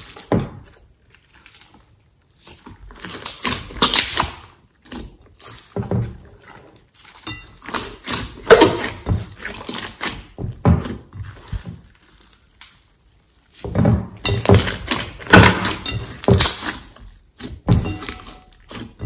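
A large mass of slime being squeezed, kneaded and stretched by hand in a glass bowl: irregular wet squelches and clicks, coming in bursts with short quiet gaps.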